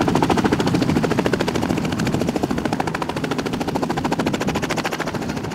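Small two-blade piston helicopter hovering low over the helipad: fast, even rotor chop with the engine running underneath. It eases off slightly toward the end.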